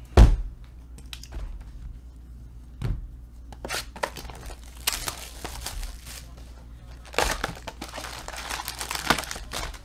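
A thump a quarter second in, then plastic shrink-wrap crinkling and tearing as it is stripped from a box of football card packs, followed by the cardboard box opened and foil card packs rustling as they are pulled out.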